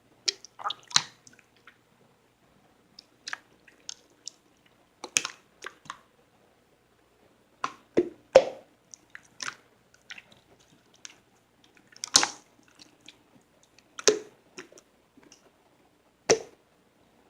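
Close-miked wet mouth sounds, like chewing: short sticky clicks and squishes come every second or two, with quiet gaps between them.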